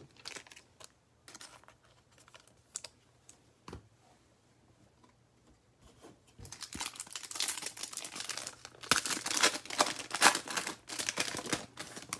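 Foil trading-card pack wrapper crinkling and being torn open by hand: a dense run of sharp crackles starting about six seconds in, loudest near the end. Before it, a few scattered light clicks and taps of cards and packs being handled.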